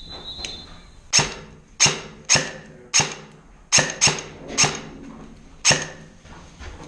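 Airsoft rifle fired in single shots, eight sharp cracks at uneven gaps over about five seconds. A faint steady high tone sounds during the first second.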